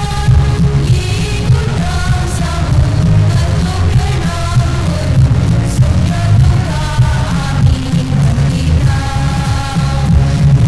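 Youth choir of mixed voices singing with a band of electric guitar, keyboard and drum kit, over a strong low bass. The voices hold long notes that change about once a second.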